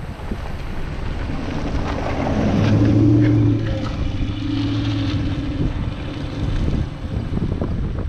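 A vehicle rolling slowly over a rough gravel lot, with low tyre rumble, scattered bumps and wind buffeting the microphone. A steady engine hum swells for a couple of seconds near the middle.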